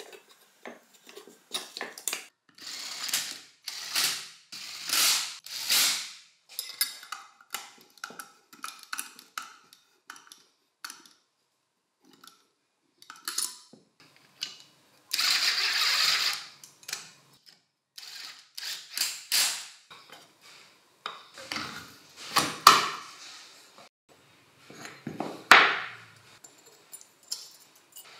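Hand assembly of a metal drill housing on a wooden bench: parts clicking, scraping and rattling together, with a screw being driven by a hand screwdriver. Two sharp knocks stand out in the second half.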